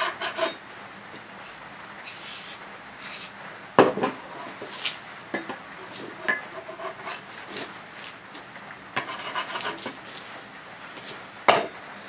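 Metal spatula clinking and scraping against a round burger patty press while a pressed beef patty is worked out of it, with a few sharp knocks in between.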